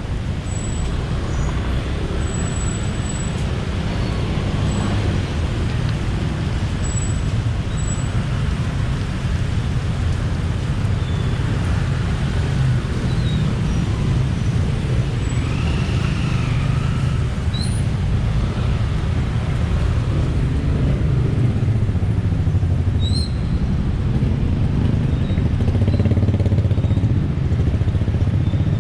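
City street traffic: a steady rumble of passing cars and motorcycles, with a few short high squeaks now and then.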